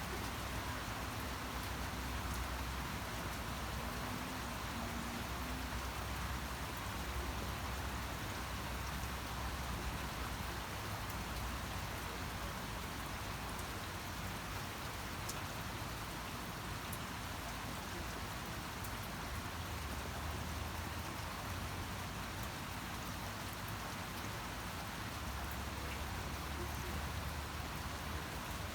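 Steady rain falling, an even hiss of drops on surfaces, with a low rumble swelling now and then underneath.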